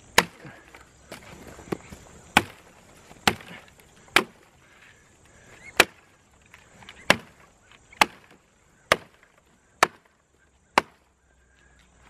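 Small hatchet head of a survival multi-tool chopping twigs off a fallen branch: about a dozen sharp chops, roughly one a second.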